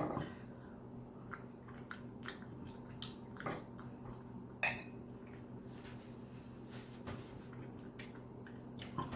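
Quiet eating sounds: a toothless mouth chewing a bite of ribeye steak, with scattered small wet clicks and a few sharper ticks, over a steady low hum.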